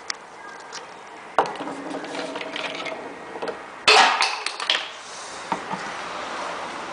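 Clicks and knocks of plastic containers and parts being handled on a workbench, with a louder, noisier burst of knocking and scraping about four seconds in.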